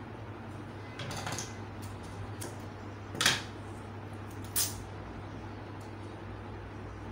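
Clear adhesive tape pulled off the roll with a short rasp about a second in, then torn with two quick, sharp rips, the first the loudest, while pieces of paper pattern are taped together. A steady low hum runs underneath.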